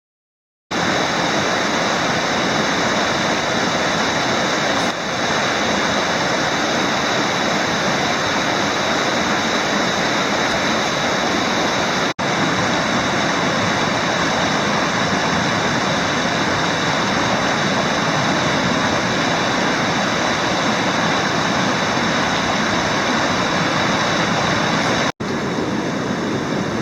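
River water rushing steadily. The sound starts about a second in and cuts out briefly twice.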